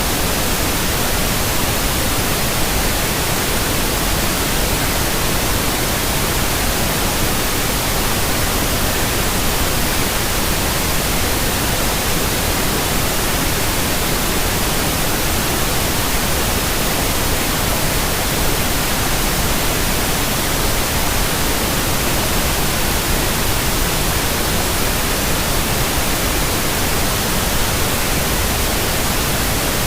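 Steady white noise: an even, unchanging hiss spread across all pitches, played as a sleep aid for a baby.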